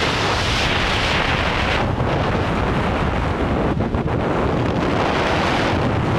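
Loud, steady wind rushing over an action camera's microphone during a tandem skydive freefall, just after exiting the plane.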